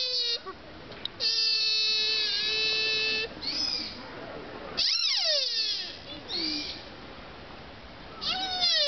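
Sika deer calling in loud, drawn-out, wailing cries, almost like an angry baby: a long steady-pitched call about a second in, a call that slides sharply down in pitch about five seconds in, and another falling call starting near the end.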